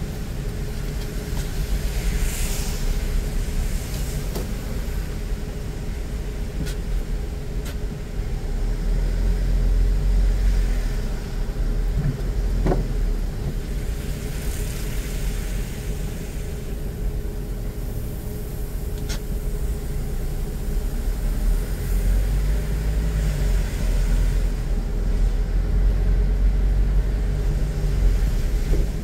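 A car driving on city streets: a steady low rumble of road and engine noise, with a few faint clicks and a short squeak about 12 seconds in.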